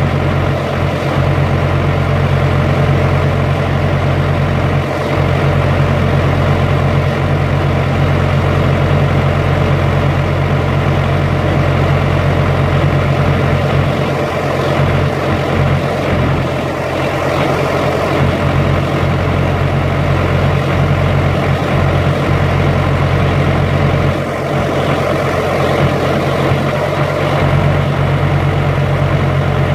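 Carrier Transicold XTC trailer refrigeration unit's diesel engine and compressor running steadily during its automatic pretrip test, in the warm-up stage, with a deep, even hum.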